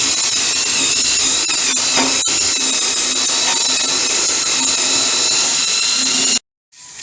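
A high-speed power tool running steadily, a high-pitched whine over a hiss, as rust is stripped off the wagon's steel body before painting; it cuts off suddenly about six seconds in.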